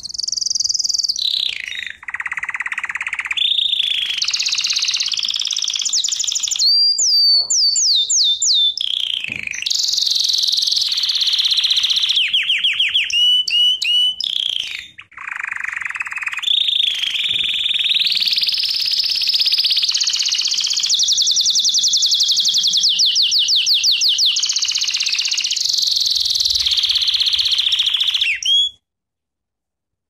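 Domestic canary singing a long, almost unbroken song of rapid high trills (rolls), each held at one pitch before shifting to another, mixed with runs of quick sweeping notes. It breaks off about a second before the end.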